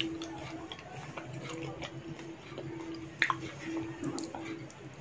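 Dahi puchka being chewed: soft wet squishing with small clicks from the mouth and one sharper click about three seconds in, over a faint steady hum.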